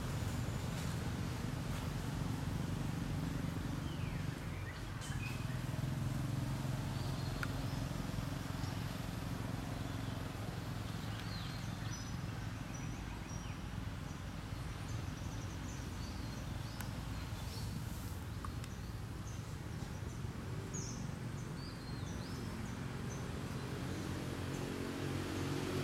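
Outdoor ambience: a steady low hum, with a few short, high chirps now and then.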